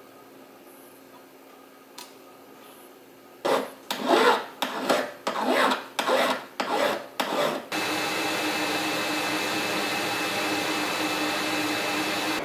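About nine rasping strokes of a hand file working metal, roughly two a second, after a quiet start with a single click. Then a steady machine whir with a faint hum starts and runs on.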